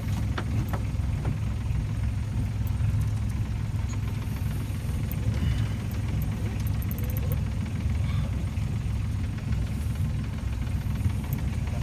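A boat engine running steadily at low revs, a continuous low rumble, with a few faint clicks near the start.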